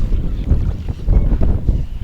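Strong gusty wind buffeting the microphone: a loud, uneven low rumble.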